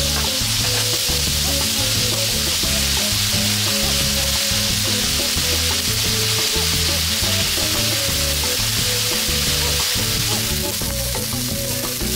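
Sliced meat sizzling steadily as it fries in oil in a pan, with background music underneath.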